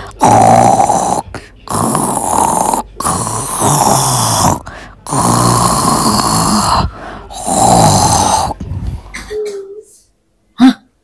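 A woman snoring loudly: five long drawn-out snores in a row, which stop about nine seconds in. A short, sharp sound follows near the end.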